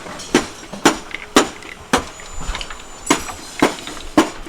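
Hammering on metal: sharp, even blows about two a second, with a pause of about a second midway.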